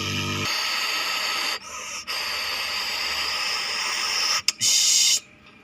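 Air conditioner fan blowing with a steady airy hiss and a faint whine. A low hum stops about half a second in, the hiss breaks off briefly a few times, and the sound cuts off abruptly near the end.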